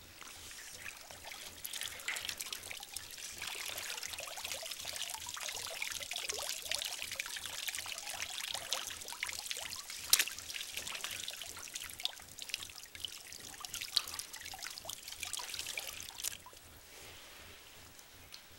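Water splashing and sloshing in a galvanized metal tub as a fully clothed person in boots moves about in it, with a sharp slap about halfway through; it dies down shortly before the end.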